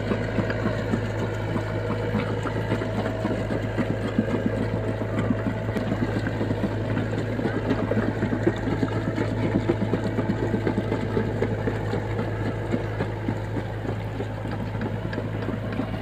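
SDLG crawler excavator's diesel engine running steadily while the arm and bucket work in the mud, a constant low hum with a rough clatter over it.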